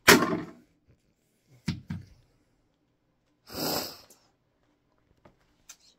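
A long rod strikes the plastic casing of a CD/cassette stereo hard, making one loud crack with a brief rattle after it. Two smaller knocks follow a little over a second later, and then a short breathy rush of noise.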